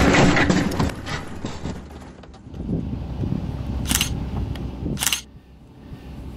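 A Toyota Supra's engine and tyres on gravel die away over the first second or two. Then come two camera-shutter clicks, about a second apart.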